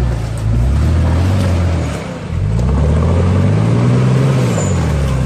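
Toyota Land Cruiser LJ77's four-cylinder diesel engine revving under load as it drives its mud tyres through a muddy track. The revs drop briefly about two seconds in, then climb again and ease off near the end.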